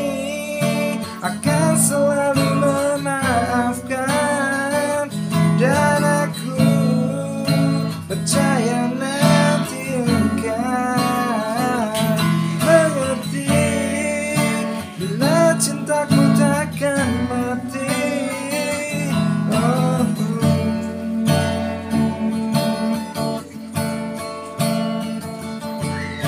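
Acoustic guitar strummed and picked, with a man's voice singing the melody over it without clear words; the voice stops about 20 seconds in and the guitar plays on alone, a little quieter.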